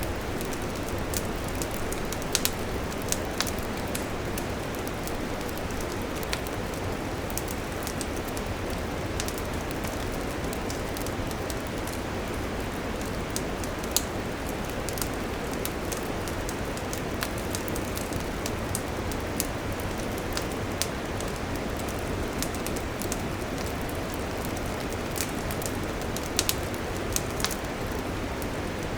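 Wood campfire burning: a steady hiss with frequent sharp crackles and pops scattered irregularly through it, one pop standing out louder about halfway through.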